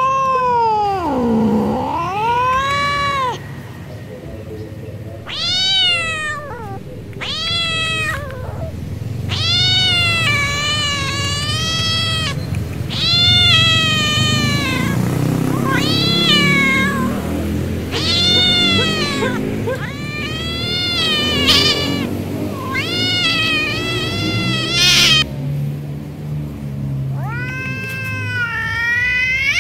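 A tomcat yowling over and over: about ten long, drawn-out calls, each rising and falling in pitch, with a lower rough moan under some of them. This is the kind of call given as an angry, scary male cat.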